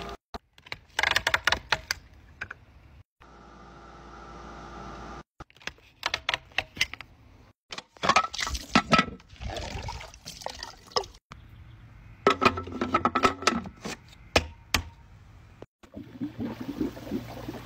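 A series of short clips cut hard one after another. A pool pump motor hums steadily, the pump's strainer lid and fittings click and knock as they are handled, and water pours and splashes.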